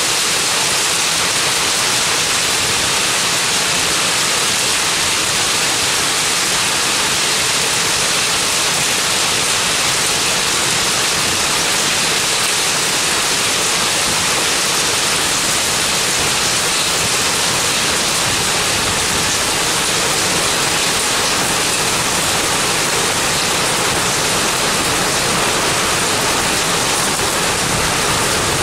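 Heavy rain mixed with small hail pouring down onto wet pavement, a loud, steady rush that does not let up.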